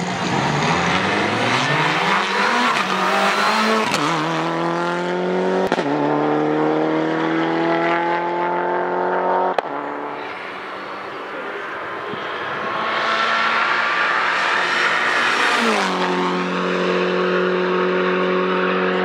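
Mitsubishi Lancer Evolution VIII rally car's turbocharged four-cylinder engine under hard acceleration, its pitch climbing and breaking again and again as it is taken up through the gears. A couple of sharp cracks come near the gear changes.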